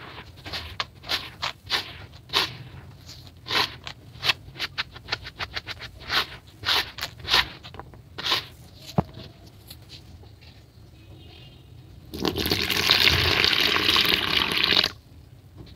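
Hands crunching and pressing damp grey grainy dirt: quick gritty crunches, several a second, for about nine seconds. After a short pause, a stream of water pours onto the dirt for about three seconds and stops suddenly.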